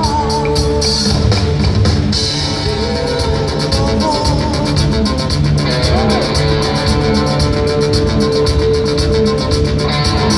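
Rock band playing live: electric guitars, bass and a drum kit keeping a steady beat, with keyboards.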